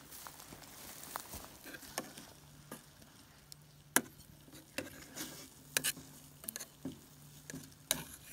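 Spoon stirring thick butter chicken in a pot on a wood-burning camp stove: irregular scrapes and sharp clinks of the spoon against the pot, the loudest knock about halfway through.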